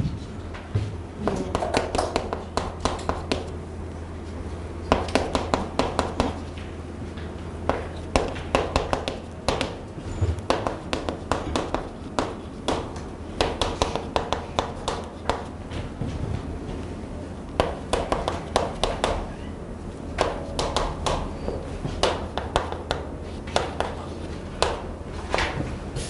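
Chalk writing on a chalkboard: quick clusters of sharp taps and scratches as each word is written, with short pauses between words, over a steady low hum.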